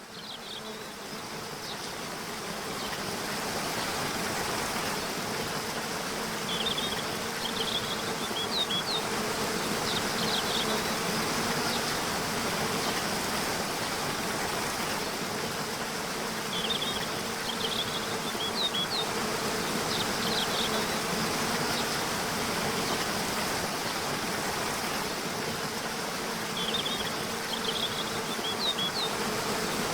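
Waterfall rushing steadily, with a steady low buzz under it. Short clusters of small-bird chirps recur about every ten seconds.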